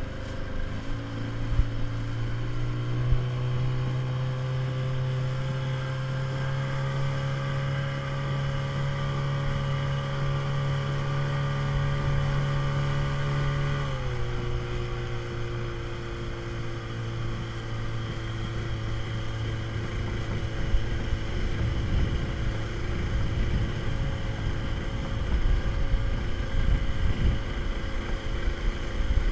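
Small speedboat's engine running steadily at speed, its pitch rising a little in the first second and dropping about halfway through. Water rushes and splashes against the hull throughout, growing louder and choppier in the last several seconds.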